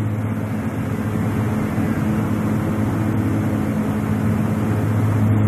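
Steady cabin drone of a Beechcraft King Air's twin turboprop engines and propellers in flight: a constant low hum over an even rushing noise.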